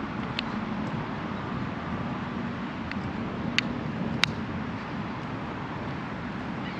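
Steady outdoor hum of distant city traffic, with a few sharp clicks; the two loudest come a little past the middle.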